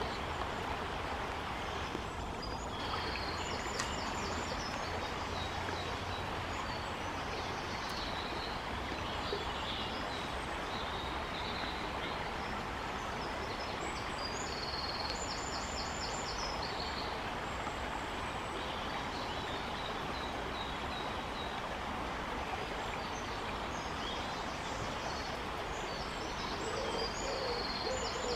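Steady rush of a shallow stream's flowing water, with a small songbird's short high trilled phrases three times: a few seconds in, around the middle, and near the end. A low repeated bird call joins near the end.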